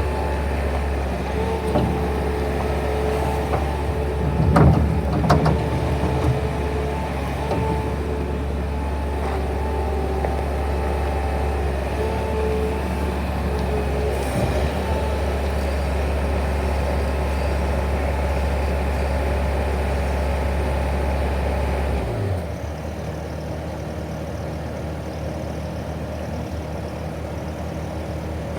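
Bobcat skid steer engine running steadily with a deep rumble and a higher tone that comes and goes. Near the end the rumble stops and the level drops.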